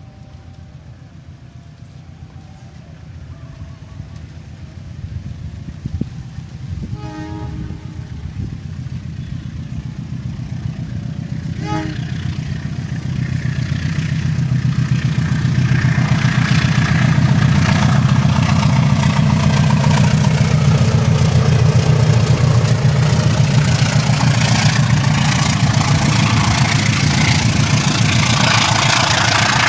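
Train with an engine rumble growing steadily louder, sounding two short horn toots about seven and twelve seconds in; from about fourteen seconds a loud, steady rushing noise joins the rumble as it draws close.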